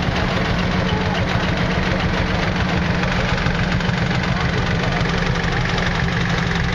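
Vintage tractor engines running steadily as the tractors drive slowly past, an even low engine note.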